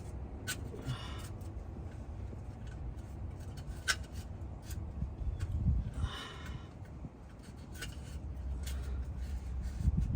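Hand wrench working on an oil filter or drain plug under a car: a few sharp metallic clicks and two short rasping bursts over a low steady rumble.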